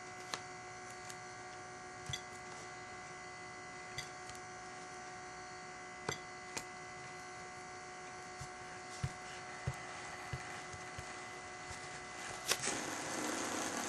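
Faint steady electrical hum with a few light clicks scattered through it. About twelve and a half seconds in there is a sharp click, followed by a louder rushing noise.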